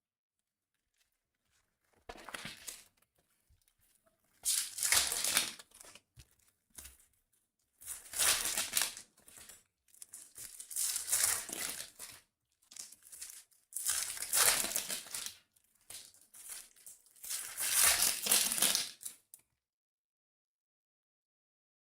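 Plastic wrapping on a trading-card box or packs crinkling and tearing as it is opened. It comes in a string of short bursts, about a second or two each, and stops shortly before the end.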